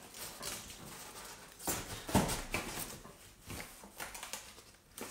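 Cardboard shipping box being pulled open by hand: the flaps scrape and the cardboard rustles in irregular bursts, loudest about two seconds in.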